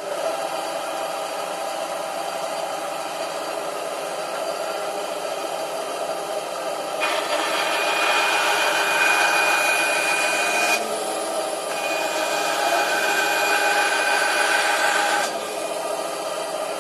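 Titan TTB705BDS bandsaw running, then cutting a piece of wood from about seven seconds in: the sound grows louder with a high whine over the blade noise, eases briefly around eleven seconds, and drops back to the plain running sound about a second and a half before the end.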